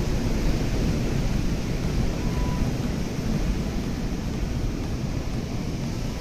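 Outdoor wind rumbling on the microphone, mixed with the steady wash of sea surf.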